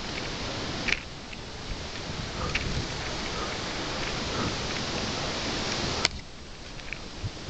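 Steady hiss of water running and splashing over wet rock, with a few sharp clicks; the loudest click comes about six seconds in.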